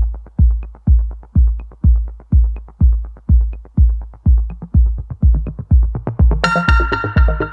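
Background electronic music with a steady deep kick drum at about two beats a second; a bright synthesizer chord comes in near the end.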